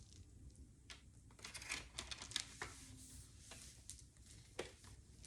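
Faint rustling, crinkling and tearing of packaging being handled, with scattered light clicks.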